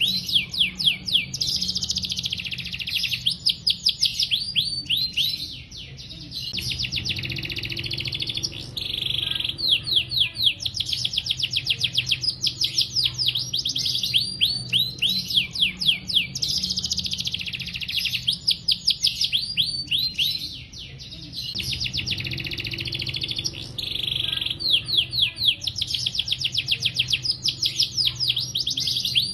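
Domestic canary singing a long, continuous song: fast rolling trills of rapidly repeated sweeping notes alternating with warbled phrases, with brief pauses about six and twenty-one seconds in.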